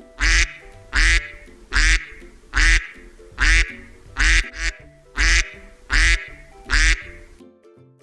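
Mallard duck quacking loudly, about nine quacks evenly spaced a little under a second apart.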